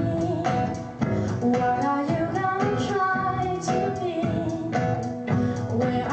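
Pop song: a woman singing over band accompaniment with a regular beat.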